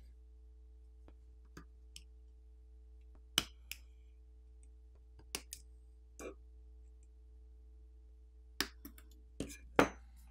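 About a dozen short, sharp clicks and taps, the loudest about a third of the way in and near the end: a plastic pry tool popping flex-cable and coaxial-cable connectors off a smartphone's sub-board. A faint steady hum lies underneath.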